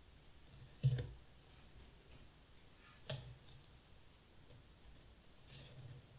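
Two light glass clinks about two seconds apart as stiff dried bunny-tail grass stems are dropped into a narrow glass vase, their ends knocking against the glass. A softer rustle follows near the end.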